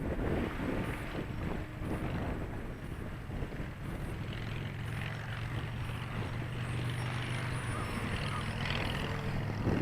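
E-flite Carbon-Z T-28 RC warbird in flight: its propeller and Mr. RC Sound engine-sound system give a steady low drone that grows stronger about four seconds in, over wind rumbling on the microphone.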